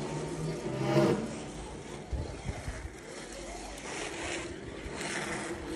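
1:32 scale Carrera Digital slot car running on the track: its small electric motor whines steadily as the car laps, with a louder surge about a second in.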